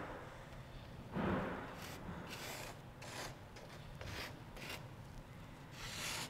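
Marking pen scratching along a rough-sawn hickory board as it traces around a wooden axe-handle template, in a series of short, faint strokes; the first, about a second in, is the loudest.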